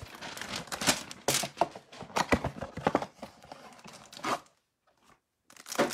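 A trading-card hanger box being torn open, its cardboard and wrapping tearing and rustling in quick irregular strokes, with a brief pause about two-thirds of the way through.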